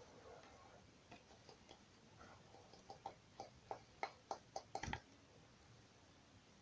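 Hand-worked slime giving a quick run of about ten small sharp pops and clicks, roughly halfway through, with fainter ticks before them.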